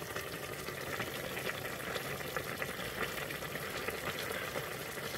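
Pot of beetroot borscht simmering on the stove, a steady soft bubbling with many small pops.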